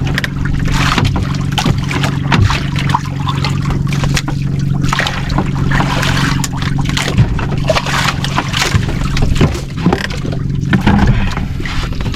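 Boat engine running steadily, with water splashing and wind noise over it.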